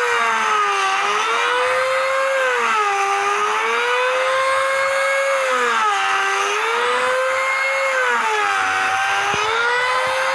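Electric woodworking power tool's motor whining steadily, its pitch sagging and recovering every two to three seconds as it is loaded and eased off in the wood.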